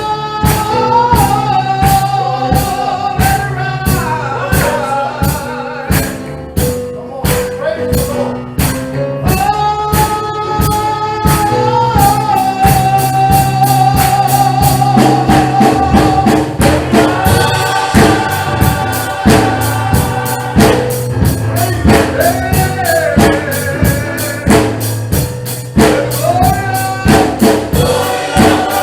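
Gospel choir singing with a steady tambourine beat and instrumental backing.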